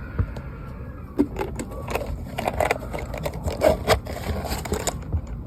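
A quick, irregular run of clicks, knocks and scraping, as of objects being handled, over a steady low rumble.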